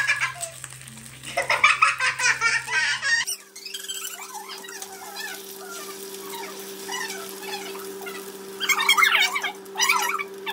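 A child laughing in quick bursts, broken off abruptly about three seconds in; faint voices follow, then another short burst of laughter near the end.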